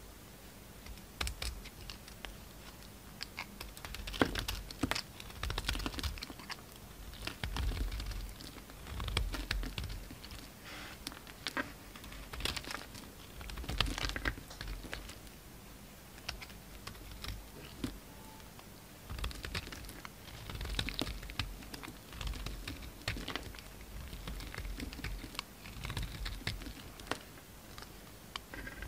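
A utility knife blade cutting and shaving a bar of soap: crisp crackly scrapes and clicks as chips break off, in irregular strokes every second or two.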